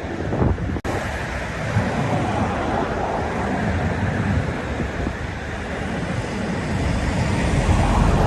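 Sea waves surging and washing ashore in a steady, swelling wash, with a low rumble of wind on the microphone. There is one brief dropout a little under a second in.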